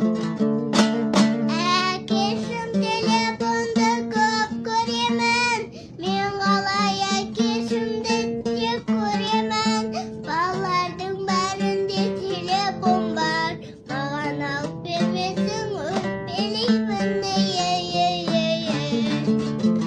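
A young girl singing an aitys verse in phrases over a steadily strummed dombyra.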